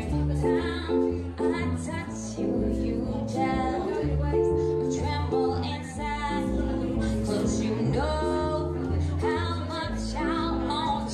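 A live trio playing a song: a woman singing into a microphone, accompanied by a hollow-body archtop guitar and a plucked upright double bass.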